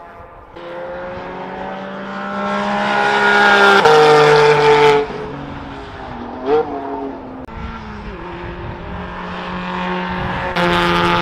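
Cars at speed on a race circuit, their engines under hard throttle as they drive past: the note builds to a peak, drops in pitch as a car goes by and cuts off about five seconds in, then another car's engine builds again and is loudest near the end.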